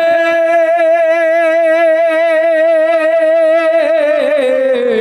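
Devotional naat singing: a singer holds one long note with vibrato, which slides down in pitch near the end.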